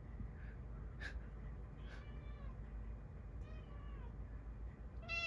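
Domestic cat meowing softly several times, short falling calls spaced about a second and a half apart, the last one a little louder near the end.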